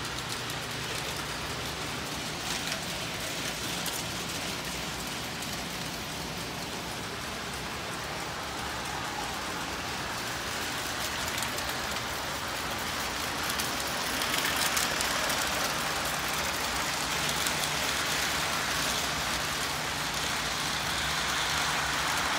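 O gauge model trains running on three-rail track: a steady rolling hiss and rumble of wheels and motors over a faint low hum. It grows louder in the last third as a train comes close.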